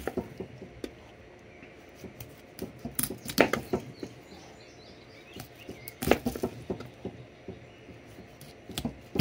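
Knife chopping through a blue catfish's backbone to cut steaks on a metal table: clusters of sharp cuts and knocks about three seconds in, about six seconds in, and again near the end.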